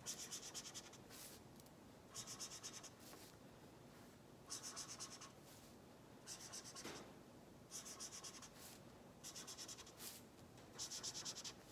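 Pink felt-tip marker scratching faintly on paper as small oval shapes are coloured in: a series of about seven short bursts of quick back-and-forth strokes, with brief pauses between them.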